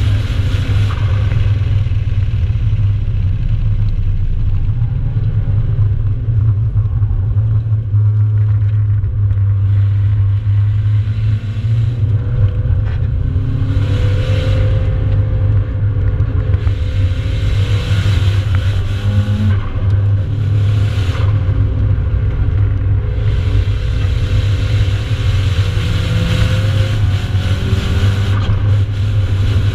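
Nissan 200SX turbocharged four-cylinder engine under load on track, heard from inside the cabin as a loud, steady low drone mixed with road and wind noise. Its pitch rises and falls a little as the car speeds up and slows for corners.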